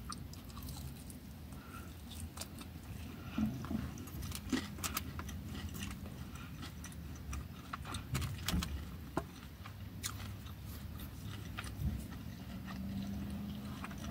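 Close-up eating sounds: chewing and biting into fried chicken, with scattered small clicks and taps of a plastic fork in a foam takeaway box, over a low steady rumble.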